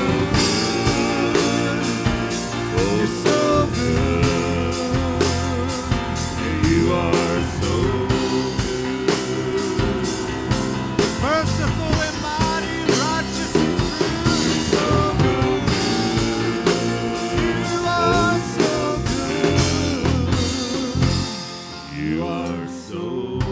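Live worship band playing a steady-beat instrumental passage on drum kit and other instruments, with some wordless singing over it.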